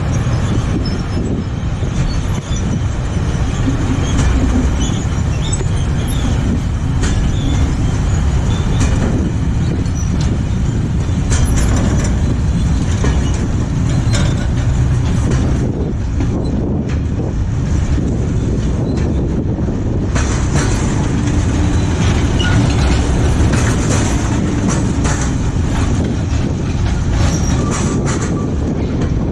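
Freight train of covered sliding-wall wagons rolling past close by as it pulls out of the station: a steady rumble of wheels on rails with clacks over the rail joints and occasional high wheel squeal.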